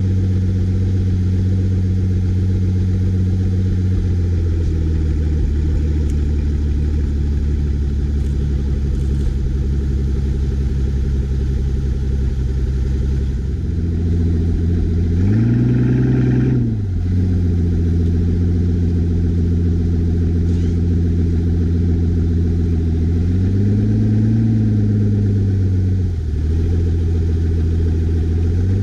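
Pagani Huayra BC's twin-turbo AMG V12 idling just after a cold start, heard right at its four exhaust tips. The idle steps down about four seconds in. Two short throttle blips follow, one about halfway through and a gentler one later.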